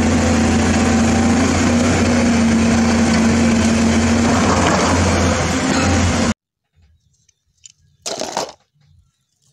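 Large Caterpillar crawler bulldozer's diesel engine running steadily under load as it pushes boulders; the sound cuts off abruptly about six seconds in. Near the end comes a brief clatter of toy vehicles being handled.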